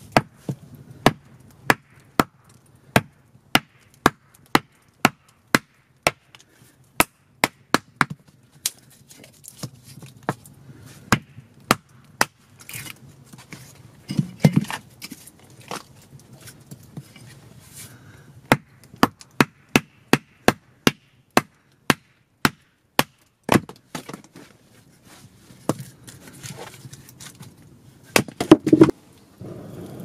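Axe chopping a small log round into kindling on a wooden chopping block: a long run of sharp chopping strikes, about two a second, with a few short pauses and a heavier knock about halfway through and again near the end.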